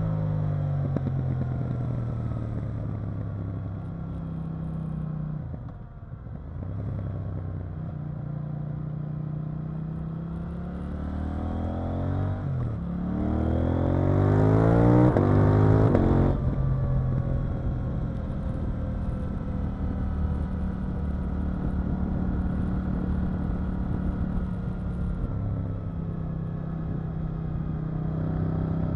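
KTM 890 Duke R's parallel-twin engine heard from on board while riding. It runs at varying revs, then about halfway through pulls hard with the pitch climbing quickly, loudest just before the throttle shuts off suddenly. After that it settles into steadier part-throttle running.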